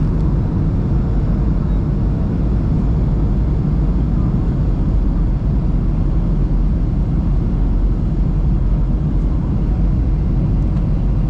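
Steady low rumble of an airliner heard from inside the cabin: engines and airflow running evenly without change.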